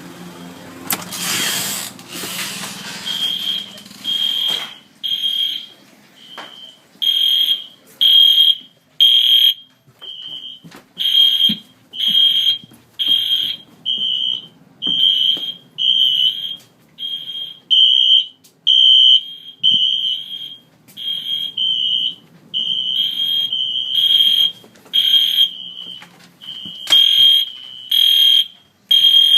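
A fire alarm sounding in repeated high-pitched electronic beeps, about one a second, some longer and louder than others, during a test of the system. A few seconds of hissing noise come before the beeps start.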